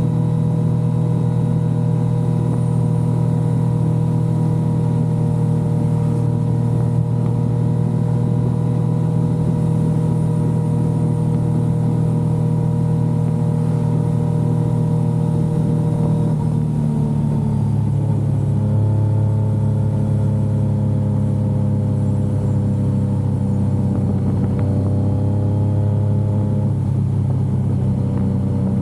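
Yamaha XSR900's inline three-cylinder engine running at a steady cruising pitch while the bike is ridden. About halfway through, the engine note drops to a lower pitch as the rider eases off or shifts up, then holds steady again.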